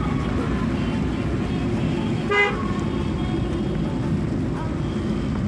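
Steady engine and road rumble of a moving vehicle, with one short horn beep a little over two seconds in.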